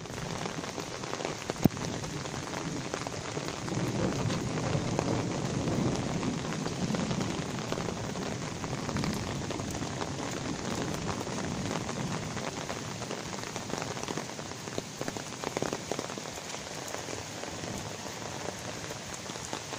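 Light rain falling on pavement and surfaces: a steady hiss with many small scattered drop ticks. A single sharp click comes about a second and a half in.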